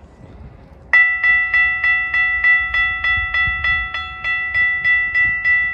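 Railroad grade-crossing warning bell starting suddenly about a second in and ringing steadily at about three strokes a second: the crossing signals activating for an approaching train.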